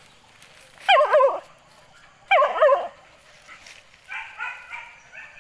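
Boar-hunting dog giving two loud yelping barks, each about half a second long with a wavering, falling pitch, about a second and a half apart, followed by a few softer, shorter whines.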